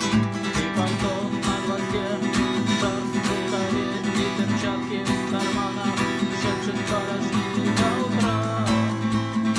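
Acoustic guitar strummed in a steady rhythm, with a melody line over the chords.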